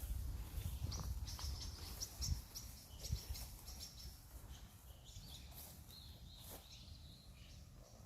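Small birds chirping: a run of short, high chirps in the first half, then a thin, drawn-out call later on, over a low rumble that dies away after a few seconds.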